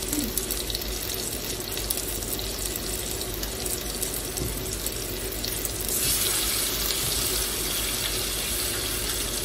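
Marinated chicken breasts sizzling in hot oil in a non-stick frying pan, a steady hiss that grows louder and brighter about six seconds in.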